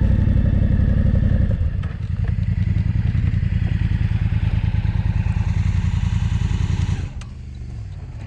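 Off-road motorcycle engine running steadily at low revs, taking over from fading music about a second and a half in and dropping quieter about seven seconds in.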